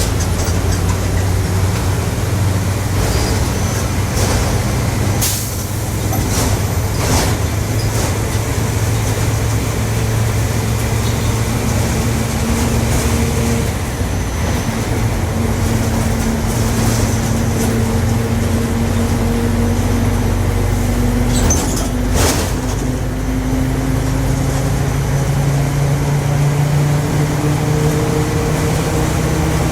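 Volkswagen 17.230 OD bus underway, its diesel engine running under a loud differential drone whose pitch slowly rises and falls with road speed. A few sharp knocks and rattles sound through it.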